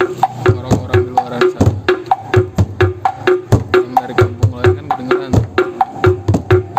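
Bedug, the large Indonesian mosque drum, beaten in a fast, steady rhythm of about five strokes a second, with deep booming strokes interleaved with sharper, pitched knocks.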